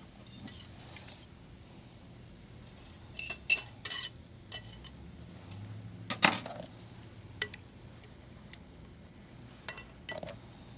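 Kitchen utensils clinking and knocking against a bowl and skillet as the egg sauce is scraped onto the pasta, in scattered clinks with a louder knock about six seconds in.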